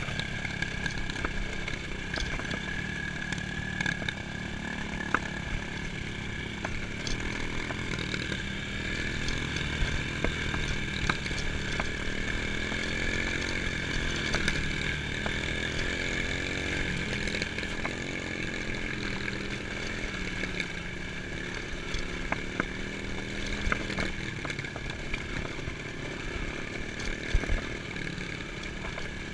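Dirt bike engine running as the bike rides along a dirt track, its revs rising and falling now and then.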